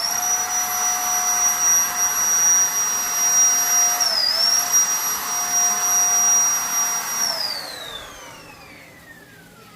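Electric paint spray gun's turbine motor running with a steady high whine. It comes up to speed at the start, dips briefly about four seconds in, then is switched off and winds down over about two seconds near the end.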